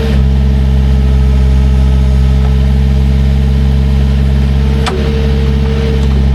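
Heavy equipment engine running steadily while digging, with a short clank about five seconds in.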